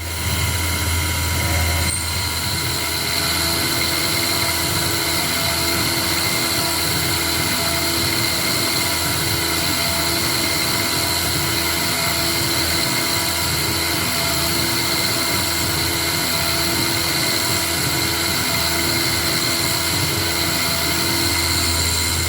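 KX-3 CNC milling machine running while it mills a cast iron flywheel blank: an even machine noise with a steady high whine, and a lower tone that comes and goes as the machine works.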